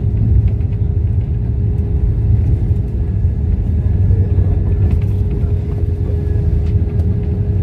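Airliner cabin noise during landing: a steady low rumble of engines and airflow with a faint constant hum above it.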